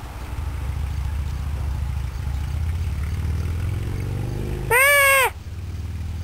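A goat gives one short, loud bleat about five seconds in, its pitch rising and then falling, over a steady low rumble.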